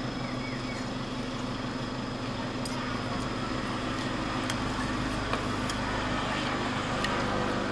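Restaurant background: a steady hum that swells a little from the middle on, with a few light clinks of spoons and dishes.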